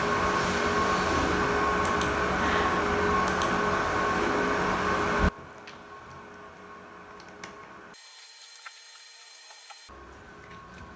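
A steady mechanical hum with a few held tones, which cuts off suddenly about five seconds in, followed by a quiet stretch with a few faint clicks.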